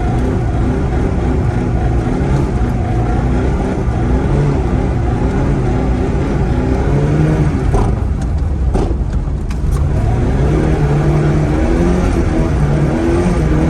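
Zhiguli's four-cylinder engine revving up and down again and again as the car is drifted on snow, heard from inside the cabin, with a few sharp clicks around eight to nine seconds in. The owner says the engine is knocking a little.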